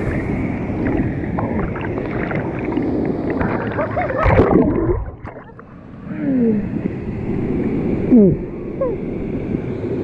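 Waterfall water rushing and splashing, dull and muffled with little treble, with a louder burst about four seconds in. Two short sounds falling in pitch come about six and eight seconds in.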